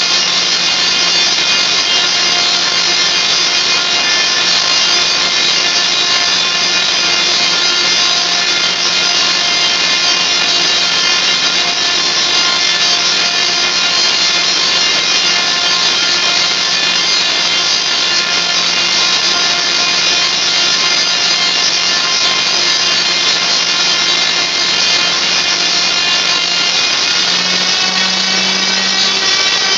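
Tesla coil discharging into the air: its sparks make a loud, steady buzz, and the pitch steps up slightly near the end.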